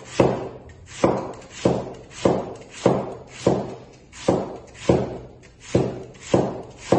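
Kitchen knife slicing purple cabbage into fine shreds: a steady run of crisp chops, about one and a half a second, each with a short crunch.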